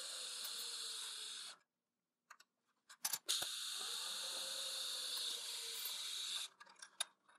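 TIG welding arc hissing steadily on a steel coupon. It cuts off about a second and a half in, a few sharp clicks follow, and the arc strikes again about three seconds in and runs until shortly before the end, trailing off in faint ticks.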